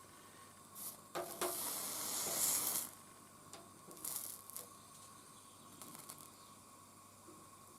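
Solder and flux sizzling on copper heated by a MAPP gas torch, in short hissing bursts: the longest starts about a second in and lasts under two seconds, with a shorter one around four seconds in.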